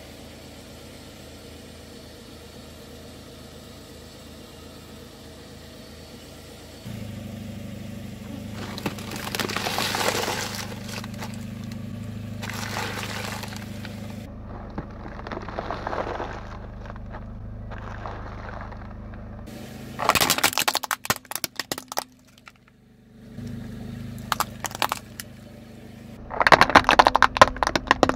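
Car tyre rolling slowly over and crushing crunchy objects: a run of crinkling bursts, then louder sharp cracking and snapping in the last third, the loudest of it near the end. The car's engine hums low underneath.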